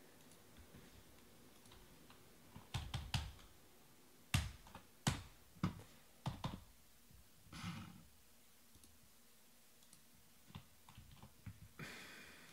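Irregular sharp clicks and knocks on a desk, some in quick clusters of two or three, with two short rustles, one past the middle and one near the end.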